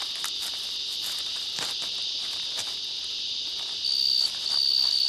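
Insects chirring steadily in a high band, with a louder shrill trill that cuts in and out in pulses from about four seconds in. A few faint rustling clicks sound underneath.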